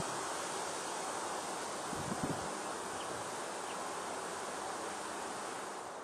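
Steady outdoor background hiss, with a brief low rumble about two seconds in.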